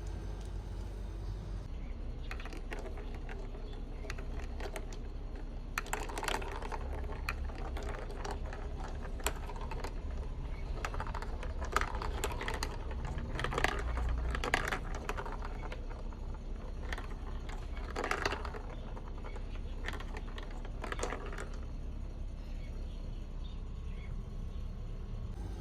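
Marbles clicking and clattering along a plastic marble-run track. The taps come in irregular clusters, busiest in the middle, and die away a few seconds before the end.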